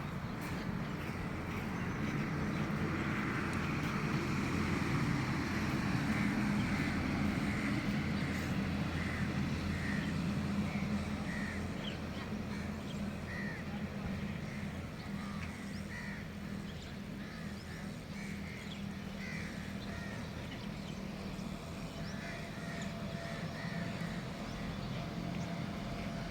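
A flock of birds calling: many short calls, scattered and overlapping, over a steady low hum.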